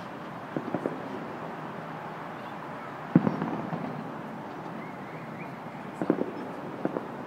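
Distant fireworks shells bursting: a few bangs in quick succession about half a second in, the loudest bang with a rolling echo about three seconds in, and another cluster of bangs near the end, over a steady traffic hum.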